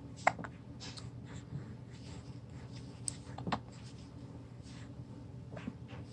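Soft rustling from a baby moving, with two short squeaks, one just after the start and one about three and a half seconds in, over a steady low hum.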